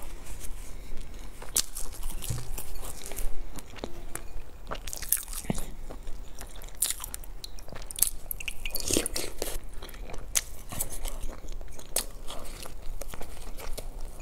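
A person biting and chewing a crusty bread roll: irregular crisp crunches and crackles of the crust between her teeth.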